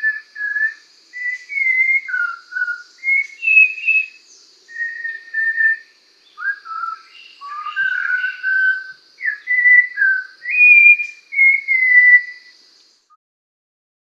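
Clear whistled song in short phrases, each under a second, some sliding up or down in pitch, with brief pauses between them. A thin, steady high tone runs underneath, and both stop about a second before the end.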